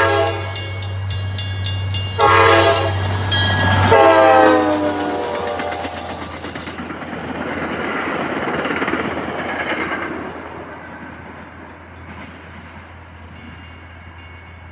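MBTA commuter rail train passing a grade crossing. The diesel locomotive's horn finishes one blast, then sounds a long second blast that drops in pitch as it goes by, over the engine's low drone. The rumble of the coaches' wheels on the rails follows and fades away after about ten seconds.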